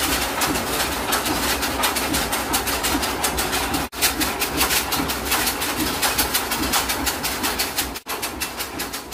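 Motor-driven dunki, a stamp mill whose pestles rise and drop into iron mortars, pounding roasted dried chillies, spices and salt into masala powder: a loud, steady run of rapid, even thuds, several a second, breaking off for an instant twice.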